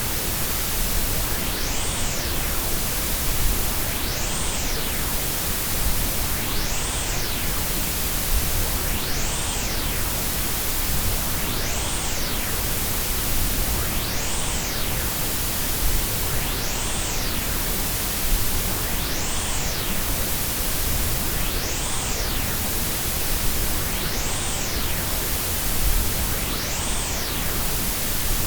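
Steady synthetic noise: white, pink and Brownian noise mixed together, a constant full-range hiss with a deep rumble underneath. A faint sweep rises and falls in the high hiss about every two and a half seconds.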